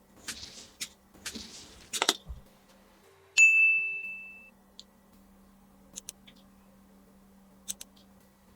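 Two short hisses and a few small plastic clicks from toy doctor tools being handled, then a single bright ding about three seconds in that rings for about a second. Only faint clicks follow.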